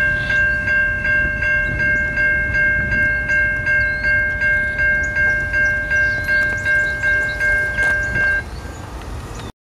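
Electronic railroad grade-crossing warning bell ringing steadily at about two and a half strikes a second, stopping abruptly about eight seconds in, over a low background rumble; all sound cuts off just before the end.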